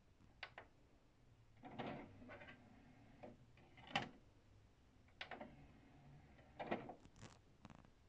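Kenwood DPF-2030 CD player's motorised disc tray at work, faint: a button click, the tray sliding open, a sharp click about four seconds in as a disc is set on the tray, then the tray sliding shut.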